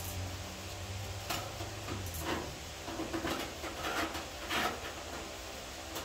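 Scattered light clinks and knocks of tools or parts being handled during car bodywork. A steady low hum underneath fades out about two seconds in.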